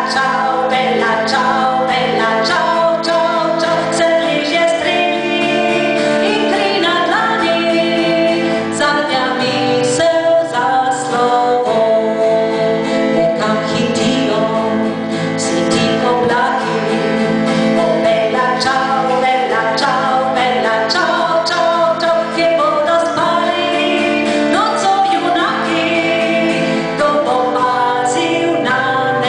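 A woman singing a song into a microphone while accompanying herself on an acoustic guitar, performed live.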